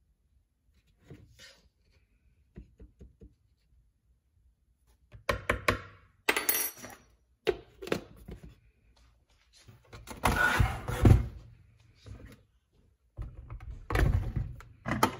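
Kitchen handling clatter from filling a blender: a few light taps of a spoon at a plastic tub, then louder, irregular plastic and metal clunks and knocks. The blender motor is not running.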